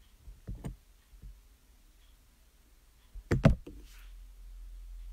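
A few soft knocks and clicks, the loudest a close pair about three and a half seconds in, followed by a low steady hum.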